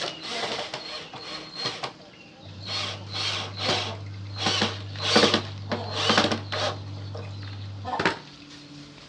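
Homemade disc sander's electric motor humming while wood is pressed against the sandpaper disc in a series of short rasping strokes. The hum starts about two and a half seconds in and stops near the end.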